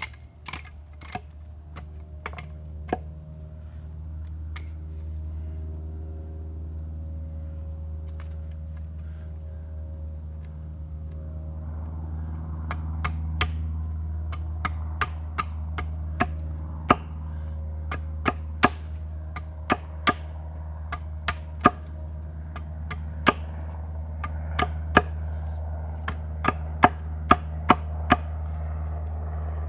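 Axe chopping wood: a few sharp strikes at first, then after a pause a run of strikes about once a second, over a steady low rumble.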